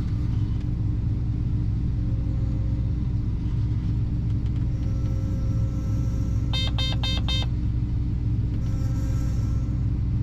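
Heavy farm machinery engine running steadily with a low rumble, with four quick electronic beeps about six and a half seconds in.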